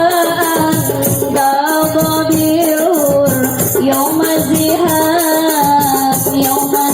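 A woman singing long, ornamented notes of an Arabic devotional song over a marawis ensemble, whose hand drums and jingling tambourines keep a steady, quick beat.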